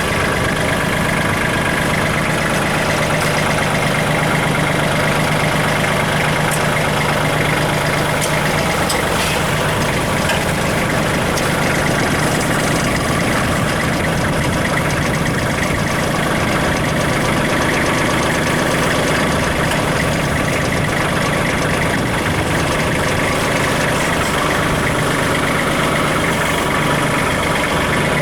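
Kubota L3800 tractor's three-cylinder diesel engine running steadily, its note shifting about nine seconds in.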